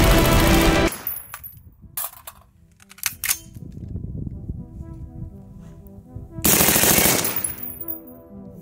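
PSA Freedom AR-15 firing: two single shots, then a short automatic burst of about two-thirds of a second that breaks off. The rifle is hot and dry after more than 4,000 rounds, and the stop is a failure to feed. Loud background music cuts out about a second in.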